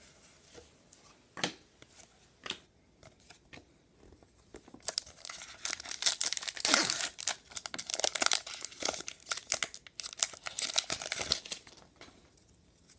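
A few light clicks, then from about five seconds in a long stretch of crinkling and tearing: a foil trading-card pack wrapper being ripped open and crumpled.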